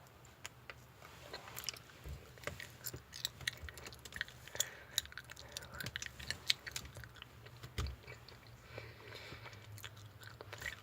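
Close-up chewing of an egg-shaped gummy jelly: wet, sticky mouth clicks and smacks as the soft white part and chewy yellow part are bitten and chewed.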